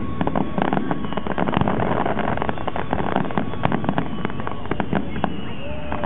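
Aerial fireworks going off in quick, irregular succession: many sharp bangs and crackles piled over a constant din.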